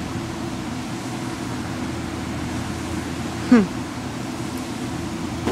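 Steady low outdoor background drone, with one short squeak that falls in pitch about three and a half seconds in.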